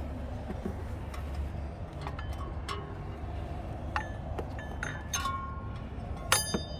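Metal tools and engine parts clinking together about seven times in the second half, each with a short metallic ring, over a steady low rumble.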